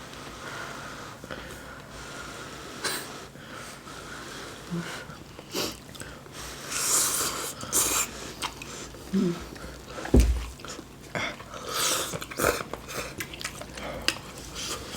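Close-up eating sounds of hot stew: chewing, airy slurps and breaths, and scattered clicks of utensils. There is a noisy airy stretch about seven seconds in and a dull knock about ten seconds in.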